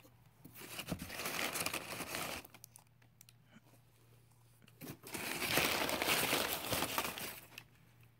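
Crumpled brown kraft packing paper rustling and crinkling as it is handled, in two bouts: one about half a second in lasting some two seconds, and a longer one starting about five seconds in.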